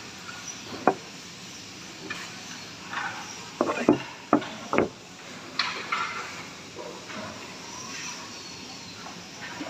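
Handling noise: a few light knocks and clatters, clustered around the middle, with soft scraping between them, as the sanded wooden board with metal handles is moved and touched.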